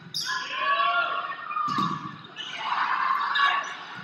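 Volleyball being struck with sharp smacks near the start and again a little under two seconds in. Players call out, and spectators shout and cheer, loudest about three seconds in, echoing in the gymnasium.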